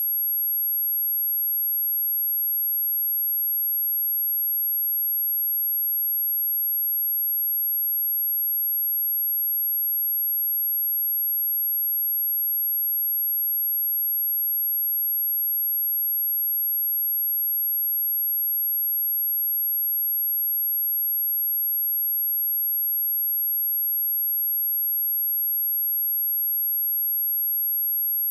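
A steady pure sine-wave test tone at 11511 Hz, a single high-pitched whistle-like tone held at constant level.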